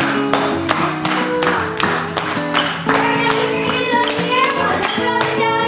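Upbeat dance music with a steady beat of about two beats a second and claps on the beat, with a melody line that slides in pitch in the second half.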